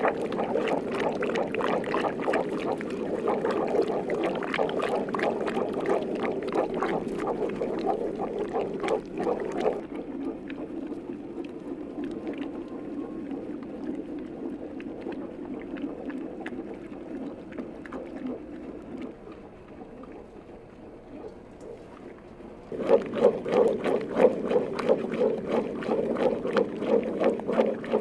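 A long wooden spoon stirs hot yogurt-and-greens dovga in a large cast-iron pot, sloshing the liquid and knocking against the pot. The soup is stirred constantly and kept from boiling. The stirring eases off for a while in the middle, then turns fast and vigorous again near the end.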